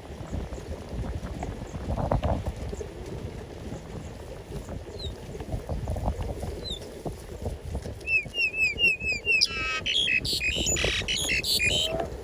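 Birds calling: about two-thirds of the way in, a quick run of six high, down-curving chirps, then louder harsh, raspy calls until near the end. A low rumbling and knocking runs underneath throughout.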